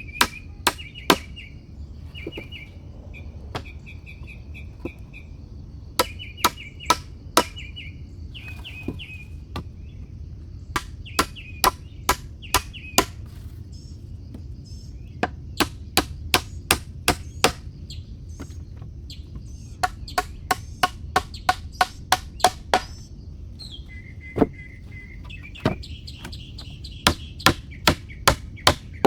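Repeated sharp blows of a hand tool on wood, coming in runs of several strikes about two a second with short pauses between runs. Small birds chirp in short trills between the blows.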